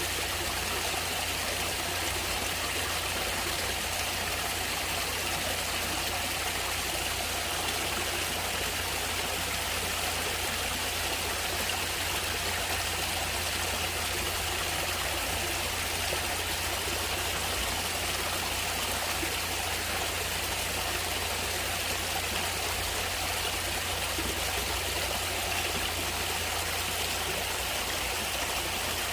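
Natural flowing water rushing steadily, an even unbroken wash with a low rumble underneath.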